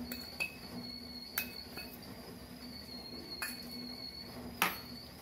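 About five light clinks of a steel fork and steel cup against a ceramic bowl as flour is tipped in and stirred, the sharpest near the end. A steady, thin, high-pitched tone and a faint low hum run underneath.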